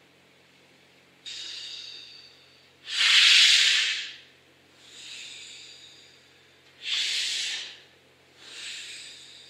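Slow, heavy breathing close to the microphone: five long breaths, softer and louder ones alternating, each lasting about a second.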